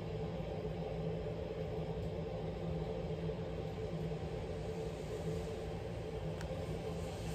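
Steady low rumble with a faint even hum.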